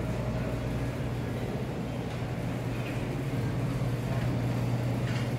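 A steady low mechanical hum over a faint even background noise, with no distinct events.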